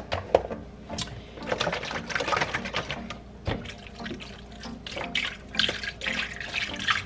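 Chicken broth poured from a carton onto red potatoes in a metal pot, an uneven splashing stream, with a few clicks from the carton being handled just before the pour.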